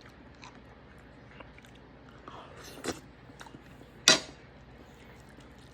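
A person eating steak: quiet biting and chewing with small scattered clicks, a louder click about three seconds in and a single sharp clack, the loudest sound, about four seconds in.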